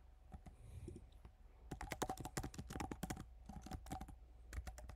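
Typing on a computer keyboard: a few scattered keystrokes, then a quick run of keystrokes from about a second and a half in until near the end.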